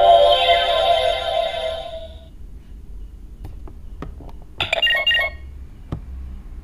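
Electronic sound effect from a DX Kamen Rider Decade K-Touch toy's speaker: a sustained chord of ringing tones that fades out about two seconds in. Clicks of its touch-screen buttons being pressed follow, with a short electronic burst from the toy about five seconds in.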